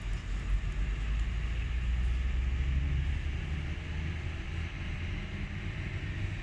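A Boeing 737-800's CFM56-7B turbofan engines running at high thrust as the airliner rolls for takeoff: a steady low rumble with a hiss above it, easing slightly in the second half.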